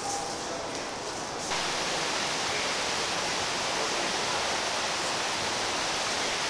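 Stream water rushing steadily, cutting in abruptly about one and a half seconds in after a quieter stretch of woodland ambience.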